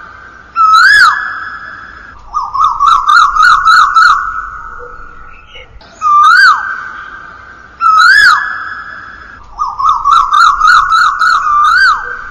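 Asian koel (koyal) calling, each note trailing a long echo. Single whistled calls rise and then drop sharply, alternating with quick runs of about seven short rising notes at about three a second. The sequence repeats in a loop, as in a ringtone.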